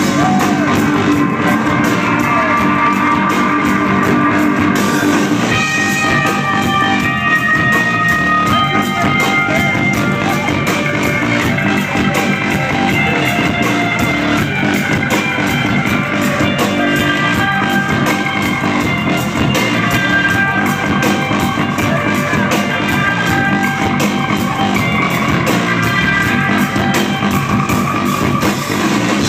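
Rock band playing live: electric guitar and drum kit, loud and steady, with a steady drum beat under sustained guitar notes.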